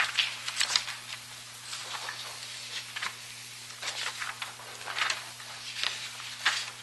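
A pause in a meeting room: a steady low electrical hum with scattered soft clicks and rustles.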